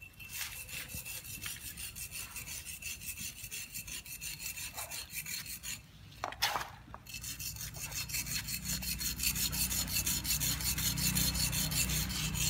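A thin metal rod being ground back and forth on a sharpening stone, in quick, even rasping strokes. About six seconds in the strokes break off briefly with a single knock, then start again faster and louder.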